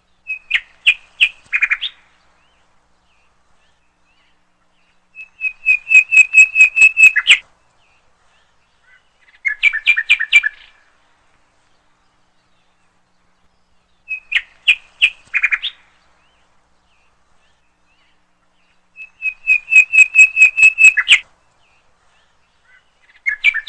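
Bird chirping in bouts of quick, sharp notes, a new bout every four to five seconds with silence between. The same three phrases come round again partway through, as a repeating loop.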